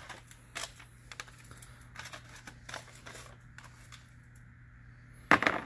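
Detroit Diesel 6-71 steel piston rings being handled: scattered light clicks and rustles, then a loud metallic clink about five seconds in.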